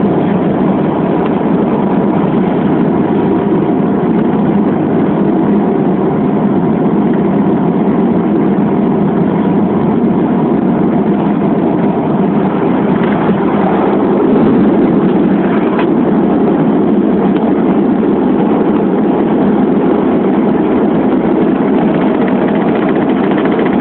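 Bombardier Dash-8 Q400's two turboprop engines and propellers heard from inside the passenger cabin: a steady, even drone with a few steady tones, as the airliner rolls along the ground after landing.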